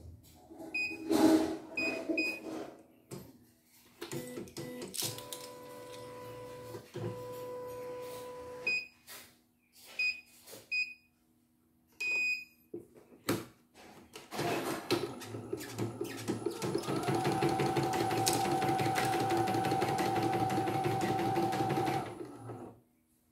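CNY E900 computerized embroidery machine: short high beeps from its control panel as buttons are pressed, a knock about a second in, and a steady hum for a few seconds. Then, about fifteen seconds in, its needle mechanism runs in rapid rhythmic stitching for about seven seconds before it stops.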